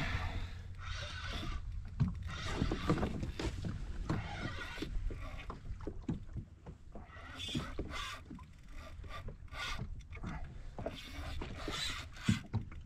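Wind rumbling on the microphone and water slapping a fishing kayak's hull, with irregular knocks and clatter from the angler standing and shifting his weight on the kayak.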